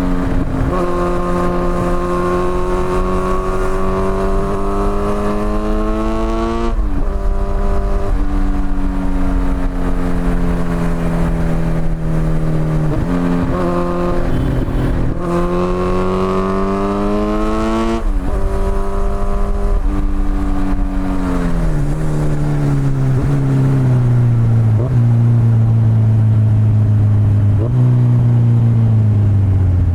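Kawasaki Z900's inline-four engine through an Akrapovic exhaust, accelerating up through the gears: the note climbs three times, each climb ending in a sudden drop at an upshift. It then slows, the note falling and settling into a low, steady drone with a short step up near the end.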